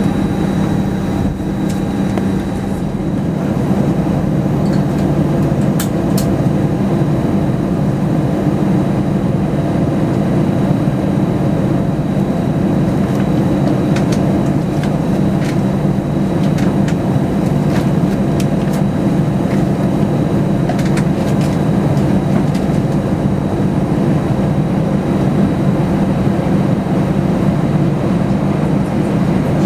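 Airbus A319 jet engines at taxi power, heard inside the cabin: a steady low rumble with a thin, faint high whine above it and a few light clicks.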